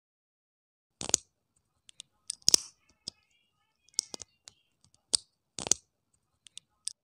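Plastic Lego-type parts clicking and tapping in the hands as a wheel is pressed onto a toy motorcycle frame: about half a dozen sharp clicks with lighter ticks between them.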